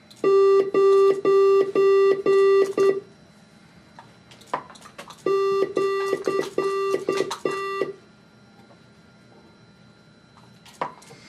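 Morse code beeps at one steady pitch, keyed on and off in short and long strokes: dots and dashes sent with head switches, here as mouse commands. There are two runs of beeps, one starting right away and one about five seconds in, with a few sharp clicks in the pauses.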